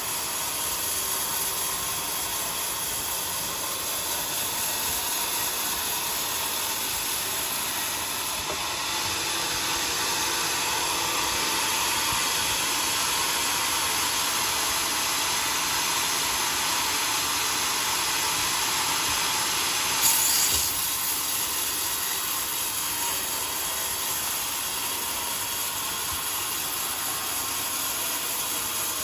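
Homemade sawmill blade cutting through a log, a steady hissing saw noise with one brief louder sound about twenty seconds in.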